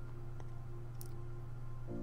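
Background music of sustained, held notes, with one brief click about a second in.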